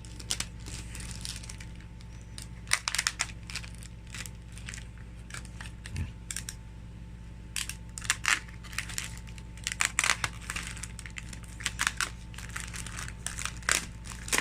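Plastic toy packaging crinkling and crackling in irregular bursts as it is handled and unwrapped, over a steady low hum.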